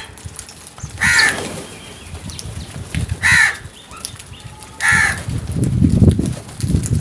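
Crows cawing: three single harsh caws about two seconds apart, with low thumping and rustling growing louder near the end.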